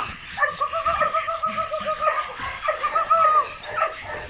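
Young Belgian Malinois giving one long, high, quavering whine of about three seconds while worked up on a bite rag during protection training.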